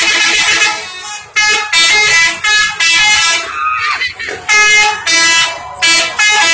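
Bus telolet horn, a multi-tone musical air horn, playing a string of short blasts at changing pitches, about two to three notes a second, like a little tune.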